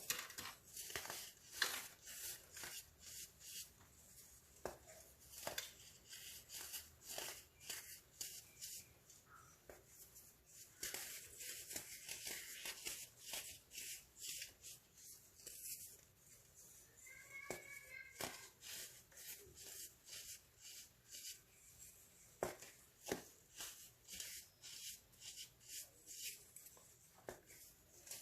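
Crunchy baking soda clumps being crushed, giving dense, irregular crisp crunches and crackles, several a second, with short pauses between squeezes.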